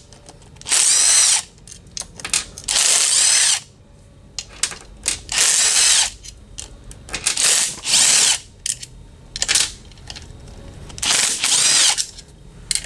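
Cordless power driver spinning out oil pan bolts in about seven short runs of roughly a second each, its pitch rising and falling within each run.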